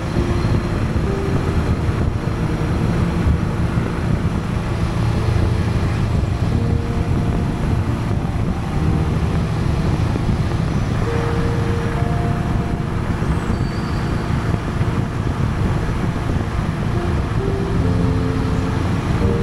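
Honda Gold Wing motorcycle with sidecar cruising at steady road speed: a continuous engine drone mixed with wind and tyre noise.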